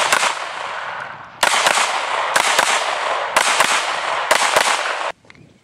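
A string of handgun shots, mostly in quick pairs about a second apart, each with a ringing echo after it. The firing stops about five seconds in.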